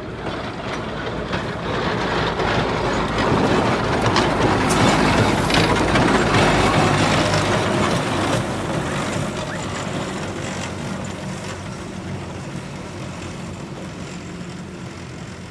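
Cass Scenic Railroad No. 11, a Shay geared steam locomotive, working past under power: a dense rush of exhaust and rapid mechanical clatter. It grows louder as the engine draws level about four to eight seconds in, then fades as it pulls away.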